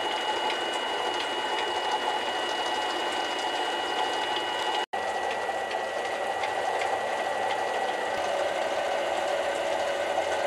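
Mini lathe running steadily, its spindle motor and gear train giving a steady high whine as it turns the bolt blank under leadscrew power feed during a light finishing cut. The sound cuts out for an instant about five seconds in.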